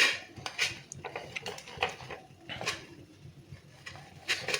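Scattered soft rubbing and light taps of hands working chaat masala onto a hot roasted corn cob.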